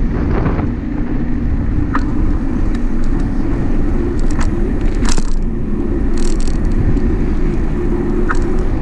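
Wind rushing over the camera microphone with road rumble while riding along pavement, as a steady loud rumble and hiss. A few short sharp clicks and rattles come through now and then.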